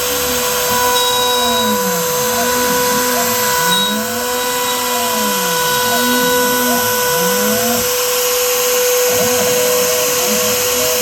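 Shapeoko 5 Pro CNC router cutting with its Makita router spindle: a steady high whine from the spindle, under a lower motor tone that repeatedly rises and falls in pitch as the axes speed up and slow down while tracing a circle. After about nine seconds the smooth sweeps give way to shorter, choppier moves.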